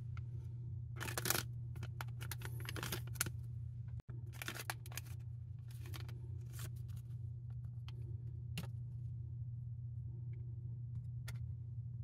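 Crinkling of a plastic anti-static shielding bag as it is handled and opened to take out a laptop memory module, in bursts over the first seven seconds, then a few light clicks. A steady low hum runs underneath.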